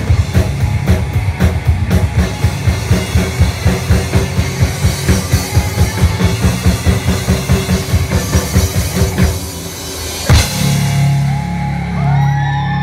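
Live rock band playing, the drum kit driving a fast, steady beat under electric guitars and bass, closing on one big final hit about ten seconds in. A low chord rings on afterwards while the crowd starts whooping and cheering near the end.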